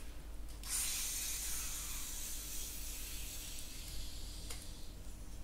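Carbonation hissing out of a bottle of 7-Up as its cap is twisted open: the hiss starts suddenly about a second in and fades away over a few seconds, with a small click near the end.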